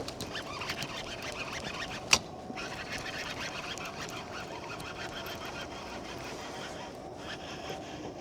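Birds calling over a steady outdoor background, with one sharp knock about two seconds in.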